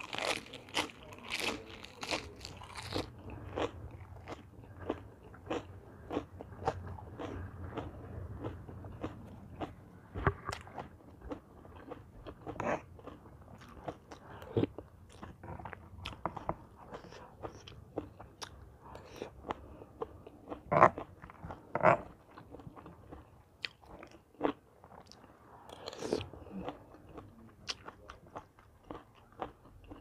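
Close-up eating sounds: crisp lettuce leaf wrapped around spicy seafood salad being bitten into, crunched and chewed in many sharp crackles. The loudest crunching comes in the first few seconds, with two more loud crunches about two-thirds of the way through.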